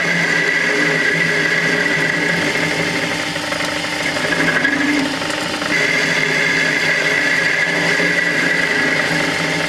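Taper rod sharpening machine running steadily, a motor hum with a high whine on top; the whine drops away for a couple of seconds midway, then comes back.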